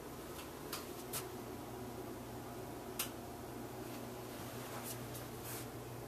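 Quiet room tone with a low steady hum and a handful of faint, scattered clicks, the sharpest about three seconds in.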